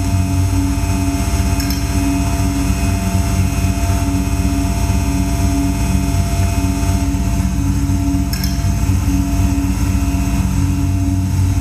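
Loud, steady electronic drone soundscape: many held tones layered over a low, rapidly pulsing rumble, with a machine-like, engine-hum quality, played as the accompaniment to a stage dance.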